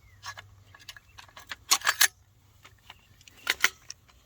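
Sharp metallic clicks and clacks of rifle parts being handled and fitted together: a few light clicks, then a quick run of loud clacks about two seconds in and two more near the end.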